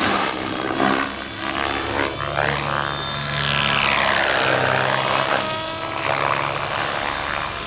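Gaui X7 electric RC 3D helicopter in flight: rotor blades chopping and motor whining under a steady low hum. Near the middle, a whine climbs and then falls away as the helicopter makes a fast, low pass.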